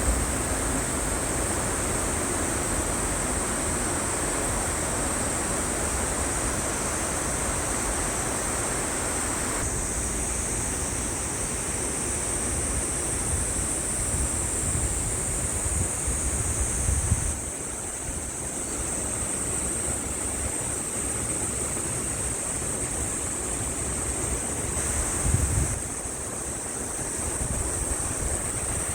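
Mountain valley stream rushing steadily over rocks, with wind buffeting the microphone in low gusts that swell twice in the second half.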